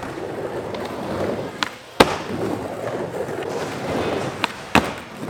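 Skateboard wheels rolling through a wooden bowl, with sharp clacks of the board striking: a loud one about two seconds in and two more near the end.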